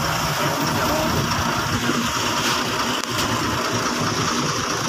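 KSRTC bus engine running, a steady mix of diesel engine and vehicle noise.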